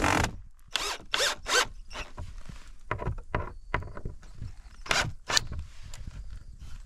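Cordless drill driving screws in short spurts through a carved wooden handle into a plank door: a quick run of brief whirs at the start and two more about five seconds in, with small knocks and clicks between.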